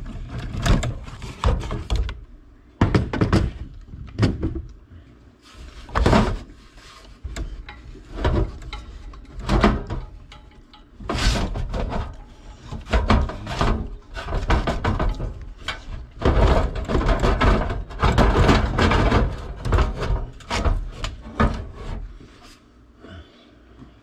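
Sheet-metal blower housing and blower motor being handled by hand inside an air handler cabinet: irregular knocks, clanks and rattles in short bursts, with a busier stretch about two-thirds of the way through that dies down near the end.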